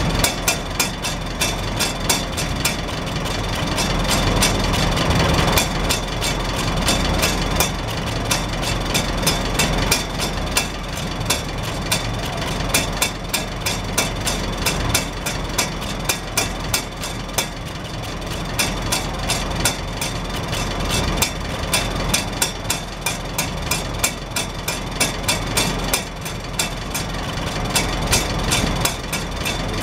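Farmall Super H's four-cylinder gasoline engine idling steadily, heard at the exhaust stack, with the stack's hinged rain-cap flapper tapping and rattling on the pipe in a rapid, even string of sharp clicks as the exhaust pulses lift it.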